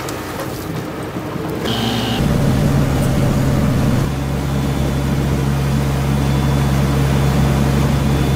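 A boat's engine running with a steady low drone, which gets louder and steadier about two seconds in.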